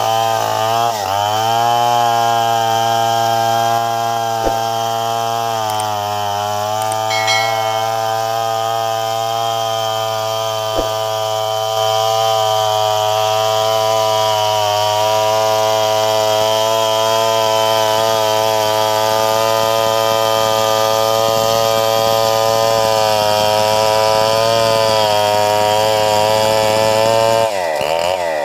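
Two-stroke chainsaw ripping lengthwise through an Antipolo log to saw off a plank. The engine holds a steady high note under load, with a couple of brief dips. Near the end its revs fall away sharply.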